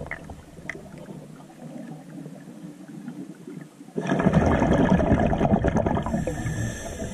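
Underwater sound picked up by the camera: a faint hiss, then about four seconds in a sudden, much louder bubbling, crackling rush of water that lasts about three seconds.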